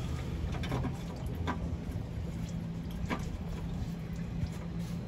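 Hand work under the car fitting the cartridge oil filter housing: a few light clicks and scrapes over a steady low hum.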